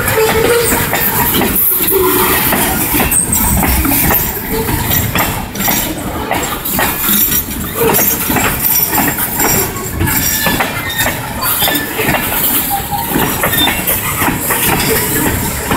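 Railroad tank cars of a freight train rolling past close by: a steady rumble of steel wheels on rail, with frequent clicks and clanks as the wheels cross rail joints.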